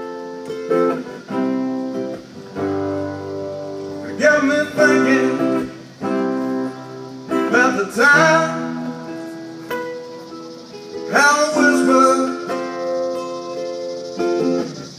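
Acoustic guitar played solo, chords strummed and left to ring, with harder strokes about every three to four seconds.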